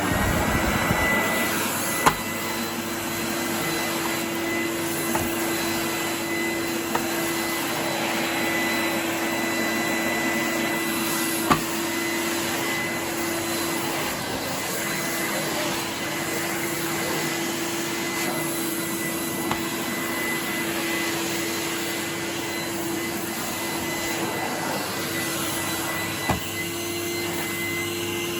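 Numatic Henry vacuum cleaner's 1000-watt motor, just switched on, spinning up and then running steadily with a constant hum and whine, with a few sharp clicks. The owner judges the motor to run fairly smoothly, with the top bearing good and the bottom bearing needing grease.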